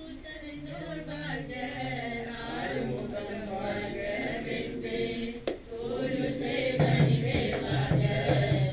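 Several voices chanting Hindu mantras together. About seven seconds in the chant grows louder, and percussion starts with it.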